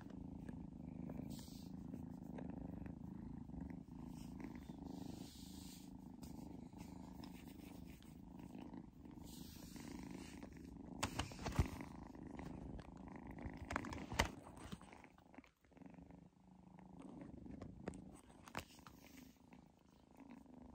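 Tabby kitten purring steadily while being stroked, with a few sharp clicks around the middle.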